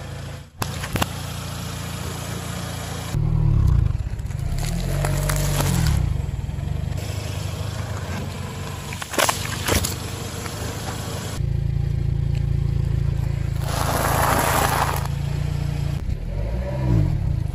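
Car engine running at low speed as its tyre rolls over and crushes objects on asphalt, with a few sharp cracks and pops as things give way. There is a longer noisy burst about fourteen seconds in, and the engine revs briefly a couple of times.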